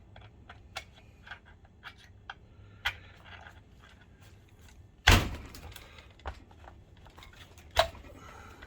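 Hand tools clicking and tapping against a plastic projector casing while working at a stuck screw, with a loud knock about five seconds in that tails off over about a second, and another sharp knock near the end.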